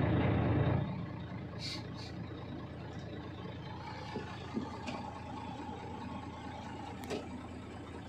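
Heavy diesel machinery running steadily, a low engine hum that is louder for the first second, with a faint whine held through the middle and a few light clicks.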